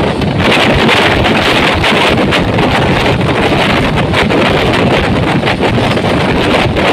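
Wind buffeting the microphone, mixed with the steady rushing noise of a moving express train.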